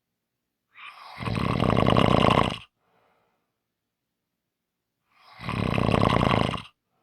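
A person snoring: two long, loud snores with a fine rattling flutter, about four seconds apart, and a faint breath just after the first.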